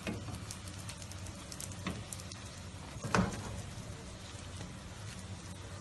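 Feteer pastry frying in a metal pan, a steady low sizzle. A few light taps of a spatula against the pan, the loudest about three seconds in.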